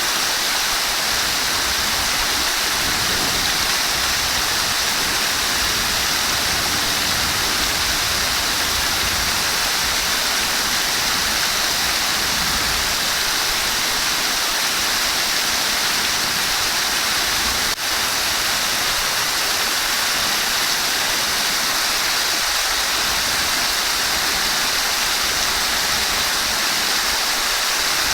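Flowing water rushing steadily, with a brief dropout about two-thirds of the way through.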